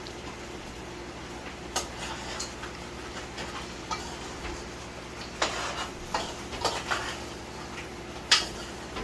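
A spoon stirring crab curry in a pot, knocking and scraping against the metal in scattered clinks, the sharpest near the end, over a faint steady hum.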